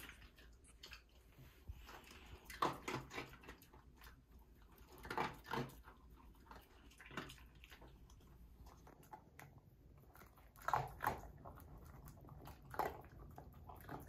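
A mixed-breed dog making a few short sounds close by, scattered through with quiet pauses between them.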